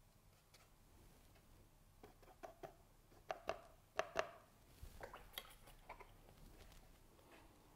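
Paintbrush tapping and dabbing against a paint palette while paint is mixed: a run of small taps and clicks starting about two seconds in, the loudest few in the middle, then fainter ones.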